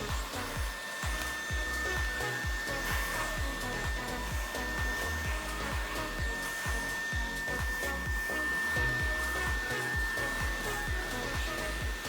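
Xiaomi Mi Vacuum Cleaner G10 cordless vacuum running steadily, its motor giving a constant high whine over the rush of air.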